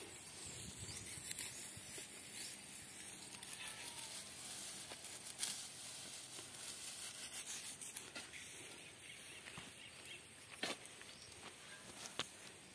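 Tall grass rustling and tearing as it is cut and pulled by hand with a small blade, with a few sharp clicks now and then.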